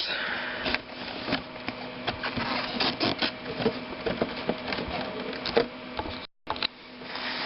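Cardboard box being opened and its packed contents handled: irregular rustling, scraping and light knocks of cardboard and packaging, over a faint steady hum. The sound cuts out to silence for a moment near the end.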